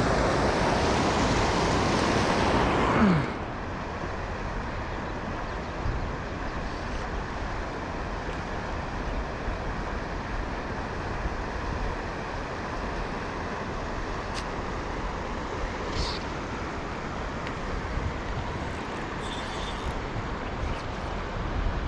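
Steady rush of a river's fast current, louder for about the first three seconds and then dropping suddenly to a lower, even level, with a few faint clicks.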